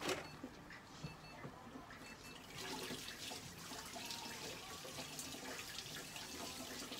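Crackly rustling and rubbing of a cloth worked over a cat's fur against a plastic sheet on a metal exam table. It grows denser and louder about two and a half seconds in, after a short knock at the very start.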